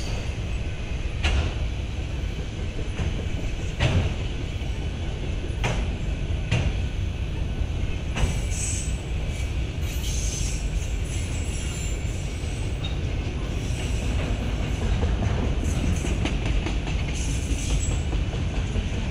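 Freight train of autorack cars rolling past: a steady rumble of steel wheels on rail, with occasional sharp clacks as wheels cross rail joints.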